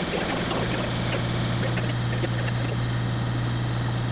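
Vertical milling machine cutting an aluminium block with an end mill: a steady machine hum under constant cutting noise, with scattered small ticks.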